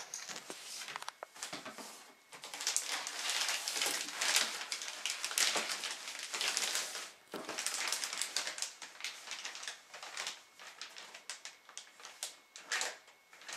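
Crinkling and rustling of the plastic bags around the foam parts of an RC model plane as they are handled and lifted out of a cardboard box, a crackling rustle in long stretches with short pauses.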